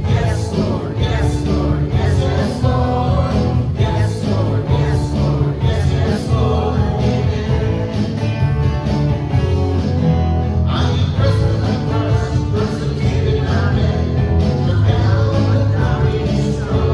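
Live church worship band playing an upbeat song loud, with singing over a steady beat, bass and guitar.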